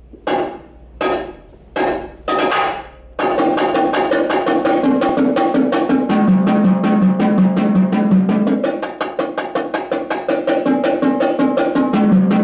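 Marching tenor drums played with sticks. A few separate ringing strokes come in the first three seconds, then a steady, fast run of notes moves around the drums, with the lowest drum coming to the fore about halfway through and again near the end.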